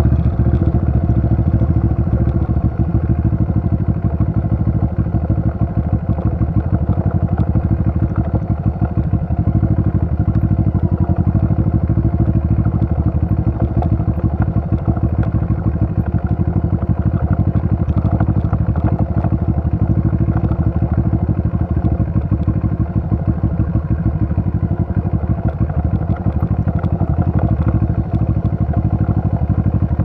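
Motorcycle engine running at a steady pace while riding along a rough gravel road, heard from on the bike.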